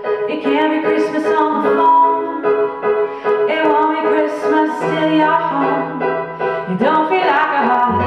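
Live performance of a slow Christmas pop song: a woman singing into a microphone over piano and a backing band, with held bass notes in the second half.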